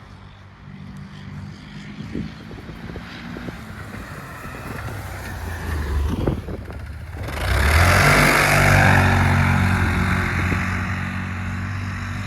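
Can-Am Defender side-by-side's engine running and gradually getting louder, with a few knocks along the way. About seven seconds in, a loud rushing hiss starts abruptly over the engine and holds, the engine sounding stronger with it.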